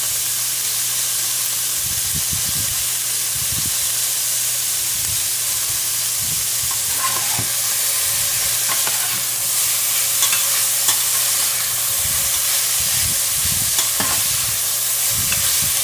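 Tofu and vegetables sizzling as they stir-fry in oil in a pan, with a spatula scraping and knocking against the pan now and then as it is stirred.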